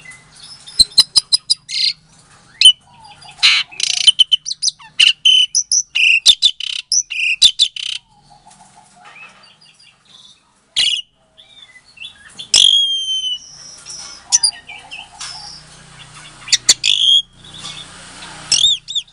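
Asian pied starling (jalak suren) singing: rapid runs of clicking, chattering notes, then sparser calls with a clear whistle about two-thirds of the way in and more chatter near the end.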